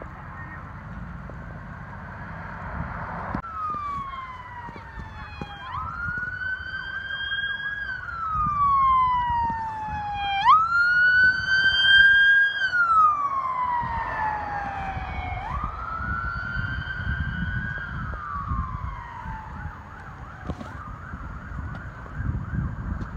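Electronic emergency siren on a slow wail, from a red fire-department pickup truck running with lights. Each cycle is a quick rise and a long fall, repeating about every five seconds, over the low rumble of traffic. It is loudest about halfway through as the truck goes by, then fades.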